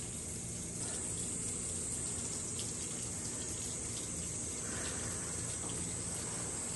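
Steady rain falling, a continuous hiss of water.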